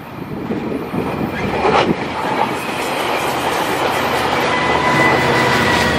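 Sounder commuter train passing close, its bilevel coaches rolling by with wheel clatter. The rumble builds over the first seconds, and a thin steady whine comes in over it in the second half.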